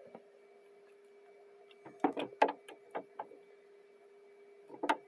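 Plastic water bottles being handled and laid sideways on a mini fridge shelf: a cluster of knocks and clicks about two seconds in, a few lighter taps just after, and another knock near the end, over a steady faint hum.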